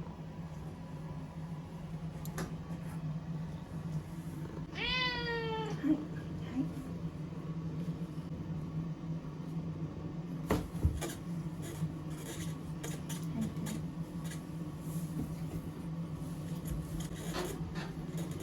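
A cat meows once, a single drawn-out call about five seconds in, over a steady low hum. A couple of sharp knocks come about halfway through.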